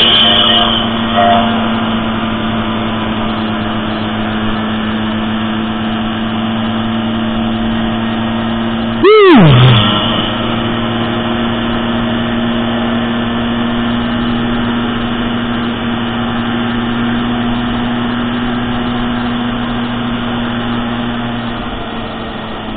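Small motorcycle engines running steadily at cruising speed, heard from a moving scooter. About nine seconds in, a passing motorcycle swells loudly and sweeps down in pitch. Near the end the engine drone eases off as the bikes slow.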